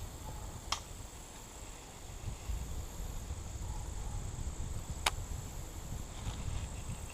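Wind rumbling on the microphone under a steady high-pitched insect drone, broken by two sharp clicks, one under a second in and one about five seconds in.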